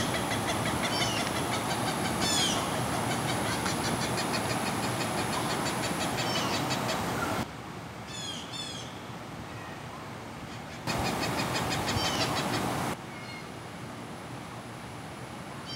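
An unidentified bird calling repeatedly with short, high, down-slurred notes, singly or in quick pairs every second or two. Underneath runs a steady high-pitched hiss with fast ticking, which drops and returns abruptly a few times.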